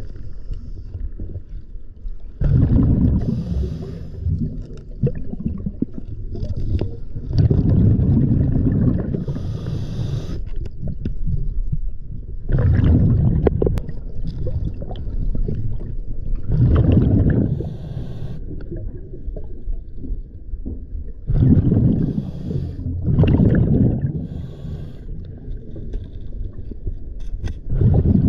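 Scuba regulator breathing heard underwater: the diver's exhaled bubbles rumble and gurgle past the camera in surges about every four to five seconds.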